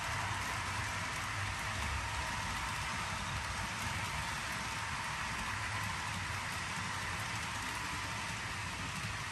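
Model train running on the layout: a steady rolling hiss of wheels on rail with a low hum underneath.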